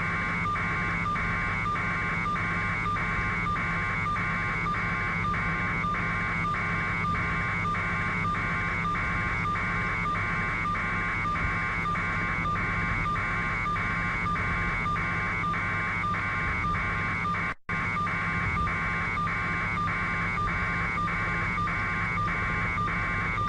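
Electronic beeping, about two beeps a second, over a steady low hum, with the whole signal cutting out briefly about seventeen seconds in.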